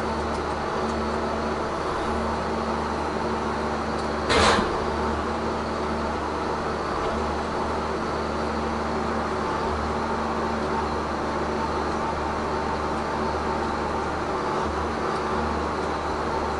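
Tigercat 1075B forwarder's engine and hydraulics running steadily, heard from inside the cab as a constant drone. About four seconds in comes one brief loud noisy burst, about half a second long, from the crane work.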